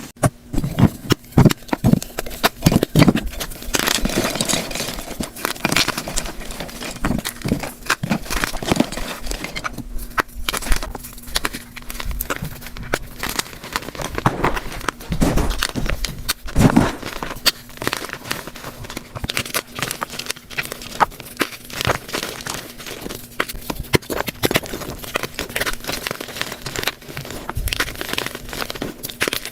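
Blocks of gym chalk being crushed and crumbled, sped up: a dense, continuous run of crunches and crackles.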